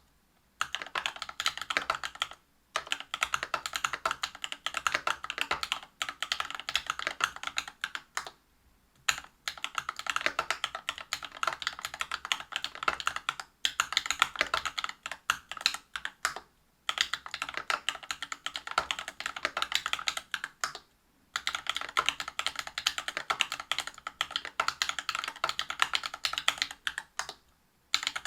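Typing on a mechanical keyboard with lubed Cobalt POM linear switches (63.5 g, Krytox 205g0) in a brass-plate Whale 75 with PBT keycaps. The typing comes in fast continuous runs of key strokes, broken by short pauses every few seconds.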